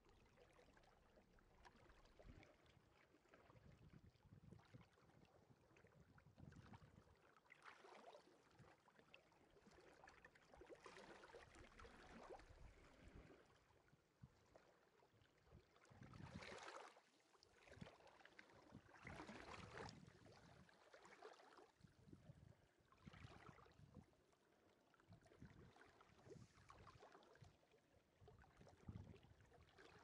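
Faint small sea waves washing onto the beach. Each wash swells and fades over a second or two, several times, with the strongest surges just past the middle.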